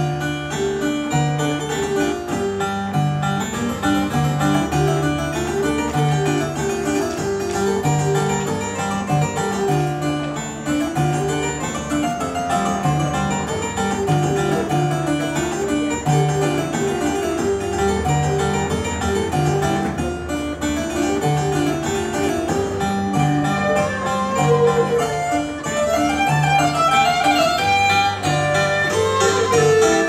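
Live medieval-style ensemble music: a harpsichord-like plucked keyboard plays running figures over a steady pulse of repeated low notes, with a bowed fiddle joining in.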